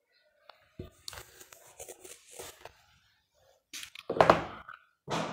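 Scratchy rubbing and scraping from a handheld whiteboard eraser being worked: a run of short, light strokes about a second in, then a few louder strokes near the end.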